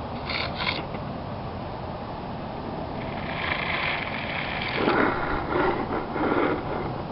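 Strong storm wind blowing steadily, with two quick clicks at the start and a louder stretch of mechanical rattling in the second half, rising to three pulses near the end.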